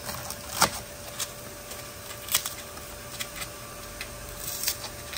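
Old household expanding spray foam, the Great Stuff kind, crunching and crackling as it is picked out by hand from around a boat's fuel tank. It comes as a few separate scratchy crackles, the loudest about half a second in, two and a half seconds in, and near the end.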